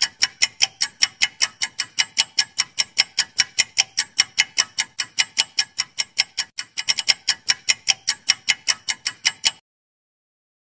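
Clock-ticking sound effect of a quiz timer: rapid, evenly spaced ticks, several a second, with a short stretch of quicker ticks about seven seconds in. The ticking cuts off suddenly about nine and a half seconds in, as time runs out.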